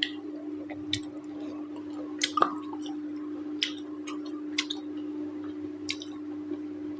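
Close-up chewing and wet mouth smacks of someone eating mutton curry and rice, in short separate clicks about once a second, over a steady low hum.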